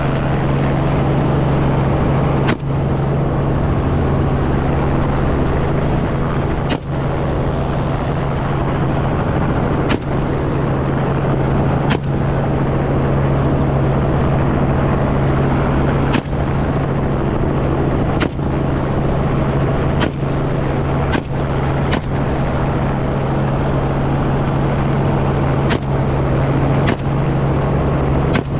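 Helicopter running steadily with a strong low hum, while a rifle fires single shots every second to few seconds, about a dozen in all.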